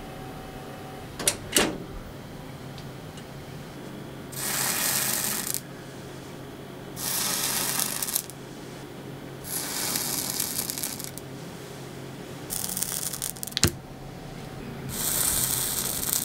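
A hot branding iron sizzling as it is pressed onto steamed brown-sugar manjū buns to sear a mark into their tops: five short sizzles, each about a second long and a couple of seconds apart. There are a few sharp metallic clicks near the start and once more near the end.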